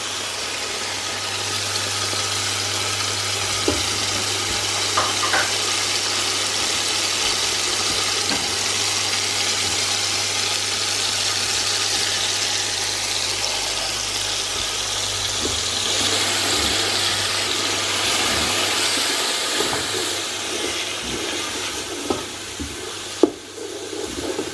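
Onion-tomato masala with ground spices frying in oil in a steel pot: a steady sizzle over a low hum. A few knocks of a wooden spatula against the pot come near the end as the masala is stirred.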